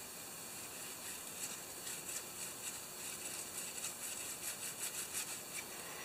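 A small piece of sandpaper rubbed by hand on a small carburetor part: faint, repeated scratching strokes that come closer together toward the end.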